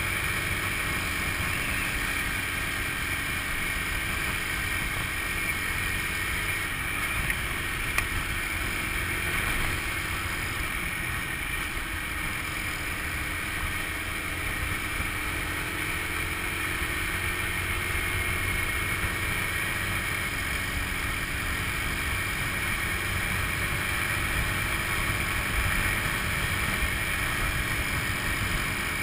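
A Honda scooter's small single-cylinder engine running steadily at cruising speed, mixed with road and wind noise as it rides along.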